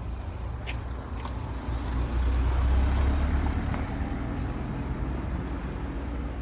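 Low road-traffic rumble, as of a vehicle passing, swelling about two seconds in and then fading back.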